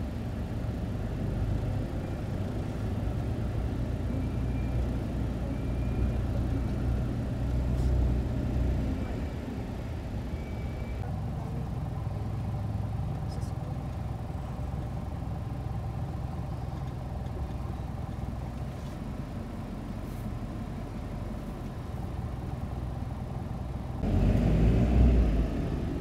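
Low, steady rumble of a car's engine and tyres heard from inside the cabin while it moves slowly in traffic. The rumble grows louder in the last two seconds.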